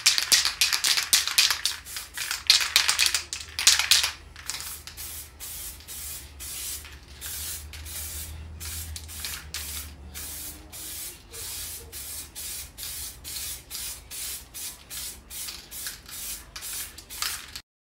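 Air spray gun spraying enamel paint in hissing bursts. They are dense and loud for the first few seconds, then shorter and quieter at about two a second, and cut off suddenly near the end.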